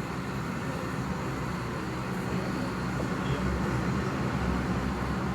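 Arriving airliner's engines heard through the terminal window glass: a steady low rumble that grows slightly louder in the second half.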